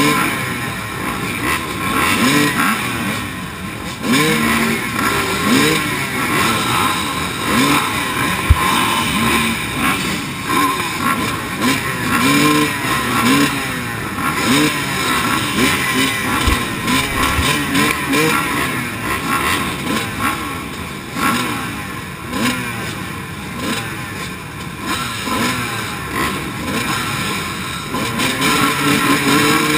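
A row of 250cc motocross bikes idling and blipping their throttles at the start gate, several engines rising and falling in pitch over one another. A single sharp thump sounds about eight and a half seconds in.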